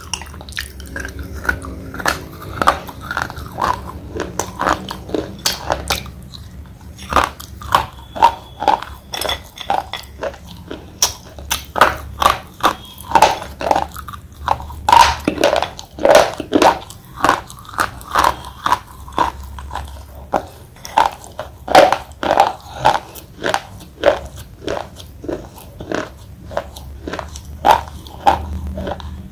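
Thick slate pencils being bitten and chewed close to the microphone: a long run of sharp, brittle crunches, about two a second, with a short pause a few seconds in.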